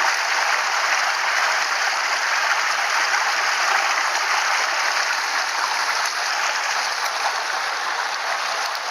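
Mountain stream water rushing, a steady loud wash with no breaks.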